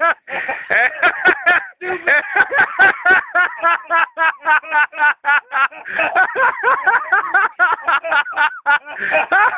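Unintelligible voices chattering rapidly, mixed with laughter.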